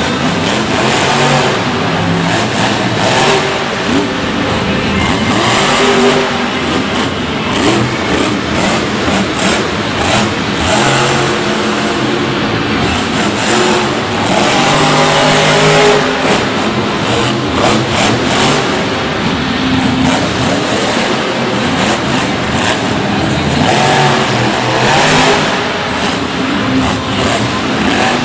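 Monster truck's supercharged V8 engine running loud, revving up and down repeatedly as the truck accelerates and turns on a dirt arena floor, echoing in a stadium.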